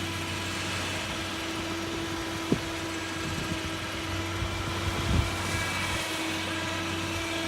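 Trailer winch motor running steadily, a constant hum, as it slowly draws a boat up onto the trailer. A sharp click comes about two and a half seconds in, and a low thud about five seconds in.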